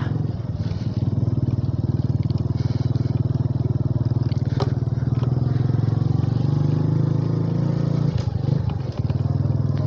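Motorcycle engine running steadily while riding, with a brief dip about eight seconds in.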